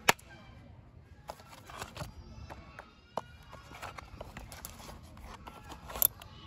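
Hard plastic parts of a toy jeep clicking and knocking as they are handled and fitted together, with two sharp clicks at the start, a few lighter knocks, and another sharp click about six seconds in.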